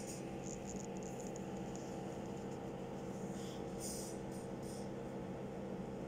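A steady electrical hum with a faint hiss, with a few faint scratchy rustles: about half a second to a second in and again near four seconds.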